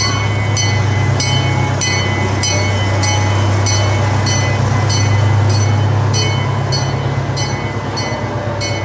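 Miniature zoo train passing close by: a steady low drone from the locomotive, growing louder toward the middle as it goes by and easing near the end, with a regular high, ringing tick about twice a second.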